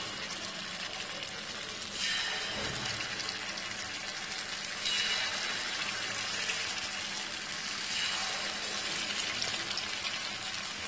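Sweet rice-and-banana batter sizzling in hot sunflower oil in the cups of a kuzhi paniyaram (unniyappam) pan. The hiss is steady and swells again each time another cup is filled, about every three seconds.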